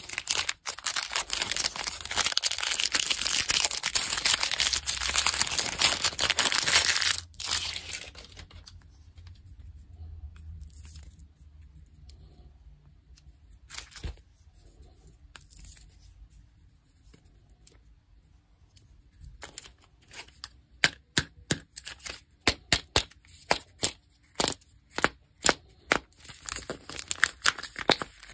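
Chocolate-bar wrapper crinkling and tearing continuously for about seven seconds as it is opened, then a mostly quiet stretch with a few faint handling clicks. Over the last eight seconds come a quick run of sharp crackles and snaps as the foil seal is peeled off a plastic Kinder Joy egg.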